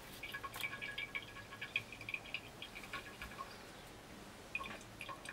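Faint, irregular small ticks and rustles of dry hay and hard shells as baby tortoises are picked up out of hay and set down in a stainless steel sink. The ticks are thickest in the first three seconds, thin out, and come again near the end.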